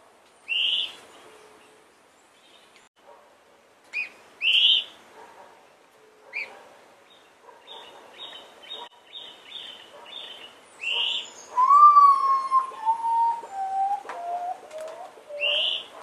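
A potoo's song: a series of clear whistles, each lower than the last, the first note the longest and loudest, starting about twelve seconds in. Other birds give sharp rising chirps several times and a quick run of repeated high notes.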